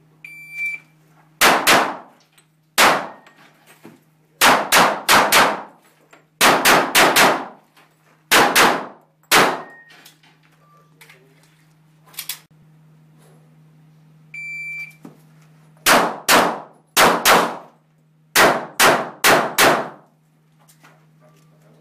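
Electronic shot timer beeps, then a pistol fires a string of about fifteen shots, mostly in quick pairs, over some eight seconds. About halfway, the timer beeps again for a second run, followed by about eight more shots in pairs. A steady low hum runs underneath.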